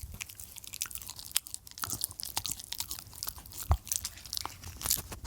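A Mini Australian Shepherd dog chewing crunchy food close to the microphone: irregular sharp crunches, several each second, with one heavier crunch about three and a half seconds in.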